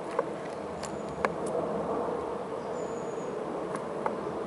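Grey squirrel feeding on bread on a window sill: a handful of sharp, irregular clicks and taps from its claws and teeth on the sill and food, over a steady background hiss. A brief thin high whistle sounds about three seconds in.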